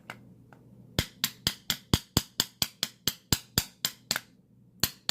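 A bump key in a Master Lock No. 3 padlock being struck over and over to bump the pins: a quick run of about four sharp metallic taps a second, a short pause, then three more taps near the end. The lock does not give yet.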